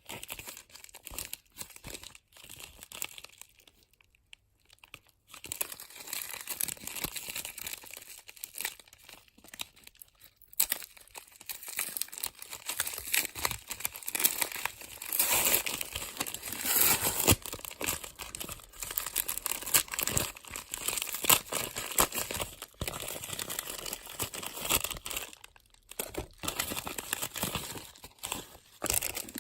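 Plastic packaging being handled and opened, irregular crinkling and tearing with sharp clicks and rustles, busiest in the middle and with short pauses.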